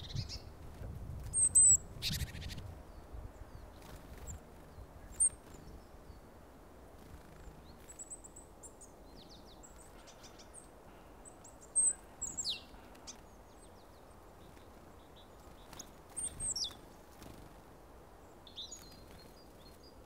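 Small songbirds calling: scattered short, high-pitched chirps and thin notes, some sliding downward. A few brief louder noisy sounds stand out, the loudest about two seconds in and again near the middle.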